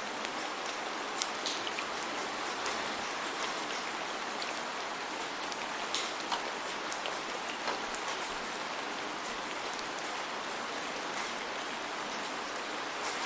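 Steady rainfall: an even hiss of rain with scattered sharper taps of individual drops hitting a surface.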